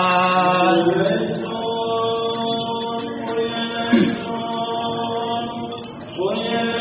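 A man's voice chanting Syriac liturgical chant, holding long drawn-out notes, with a new phrase beginning near the end. There is a brief louder sound about four seconds in.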